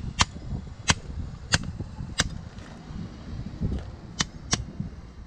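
Hammer striking a length of 7¼-inch gauge rail laid over a wooden sleeper to bend it into a sharper curve: about six sharp blows, four evenly spaced, a pause, then two quick ones near the end.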